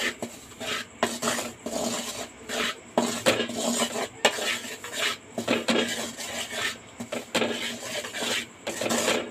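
Wooden spatula scraping and stirring wheat flour around a metal kadai in repeated strokes, about two a second, as the flour is dry-roasted in ghee on medium flame.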